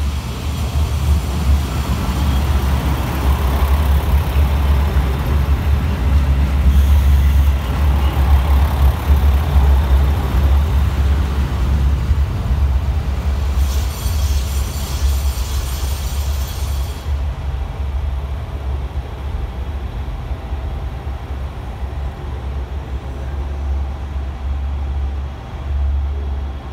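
KiHa 185 series diesel railcar moving through a station platform, its diesel engine running with a steady low rumble. A hiss of air lasts a few seconds about halfway through.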